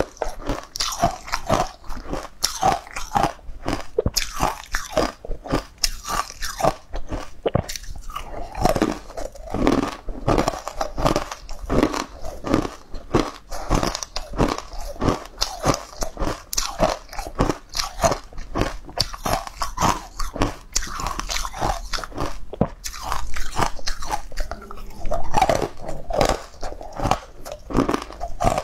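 Close-up crunching and chewing of chunks of frozen coloured ice, a fast, continuous run of crisp bites picked up by a clip-on microphone.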